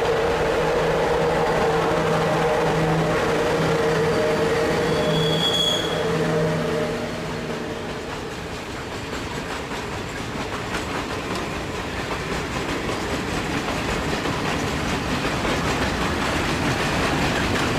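A freight train hauled by LE5100-type electric locomotives passing close by. First comes the locomotives' steady electrical hum, with a brief high squeal about five seconds in. After about seven seconds the hum gives way to the rolling and clacking of empty freight wagons going over the rail joints.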